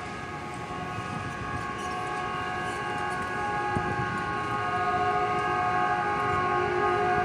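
Long, continuous blast of the electric horn of a Tokyu 8500 series electric train, a steady chord of several tones, growing louder as the train approaches.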